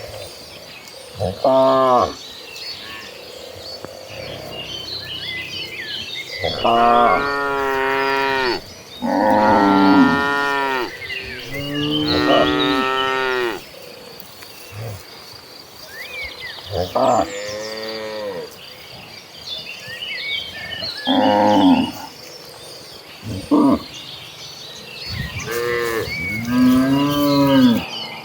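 A herd of cattle mooing, with about eight long moos one after another, some running into each other, each rising and then falling in pitch. A faint steady high whine and small chirps sit behind them.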